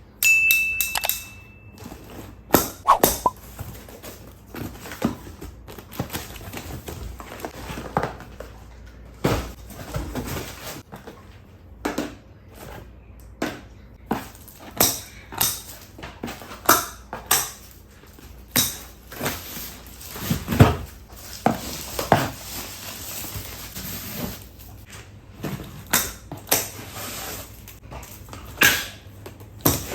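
Groceries and their packaging being handled: irregular knocks, thuds and rustles, with a short steady high tone in the first two seconds.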